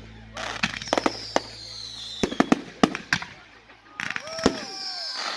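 Aerial fireworks going off: a string of sharp bangs from bursting shells. A whistle falling in pitch sounds near the start and again about four seconds in.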